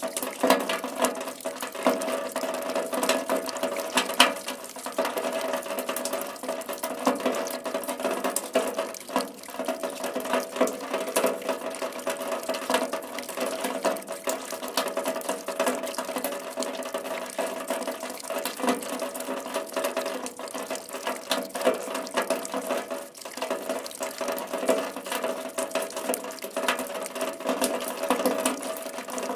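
Steady rain falling, a dense, unbroken spatter of many individual drops hitting a surface.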